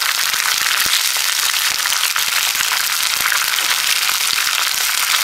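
Vegetable stock sizzling steadily in a hot non-stick pan as boiled peas, carrots and beans are added and stirred in with a plastic spatula, with a few faint clicks through the crackle.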